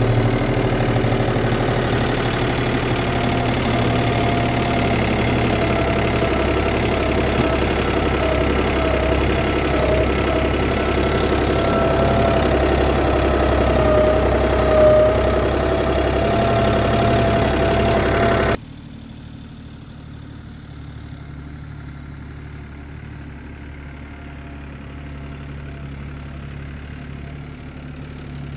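John Deere 790 compact tractor's three-cylinder diesel running steadily under way, loud from inside the cab, with a wavering whine over it. About two-thirds of the way in the sound drops suddenly to the same engine heard fainter and duller from outside the tractor.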